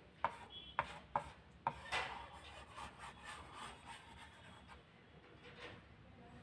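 Plastic stylus rubbing across the smooth screen of an LCD writing pad as a drawing is made: soft scratchy strokes, with a few sharp taps in the first two seconds.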